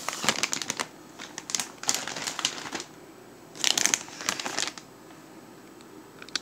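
Plastic frozen-food bag crinkling as it is picked up and handled, in three separate bouts of crackling.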